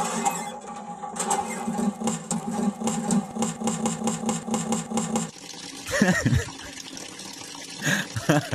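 Rapid, even mechanical clatter, about five strokes a second over a steady hum, stopping about five seconds in. A man then laughs twice.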